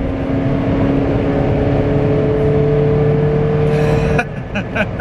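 Honda Integra DC1 heard from inside the cabin while driving: engine and road noise, the engine tone rising slowly in pitch as the car accelerates. About four seconds in, the engine note drops away suddenly.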